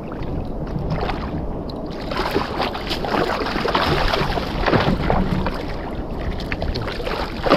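Water splashing and sloshing around a fishing kayak, with wind on the microphone; the splashing grows louder and busier about two seconds in.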